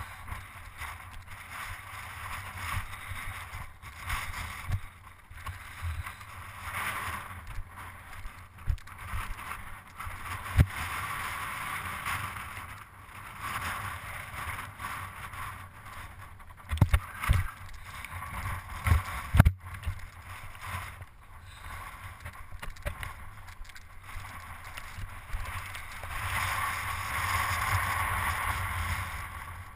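Mountain bike clattering down a rocky trail with wind rushing over the bike-mounted camera's microphone; the noise swells and fades with speed, and several sharp knocks from hits on rock stand out in the second half.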